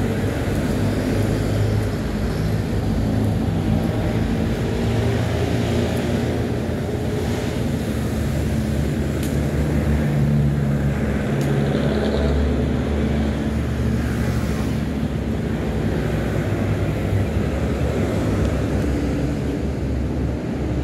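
Motorcycle engine running while riding, a steady low hum that swells a little now and then, over road and wind noise.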